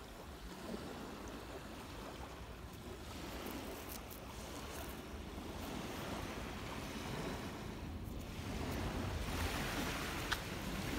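Small lake waves washing on a sandy shore with wind, an even rush that swells louder near the end; a brief click comes near the end.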